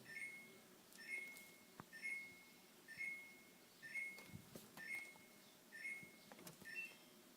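Samsung RB29FERNCSS refrigerator's control panel beeping: short electronic beeps about once a second, the last a little higher, stopping about seven seconds in. It is the fridge's high-temperature alarm, sounding because the cabinet has not yet cooled down.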